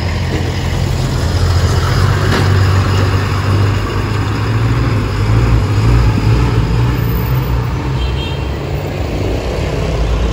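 Road traffic close by: vehicle engines running with a steady low drone, including a heavy truck passing.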